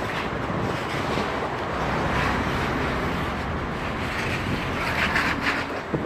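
Steady outdoor rumble with wind buffeting the microphone, and a few short clattering knocks about five seconds in.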